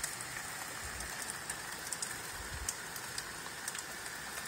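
Heavy rain pouring down in a steady hiss, with scattered ticks of drops striking the window and sill, and a few faint low thumps.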